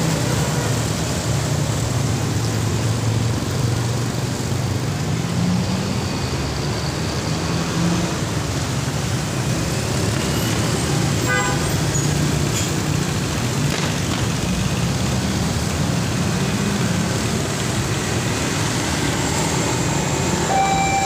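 Road traffic of motorcycles and cars running steadily over a level crossing, engines and tyres, with a short horn toot about halfway through.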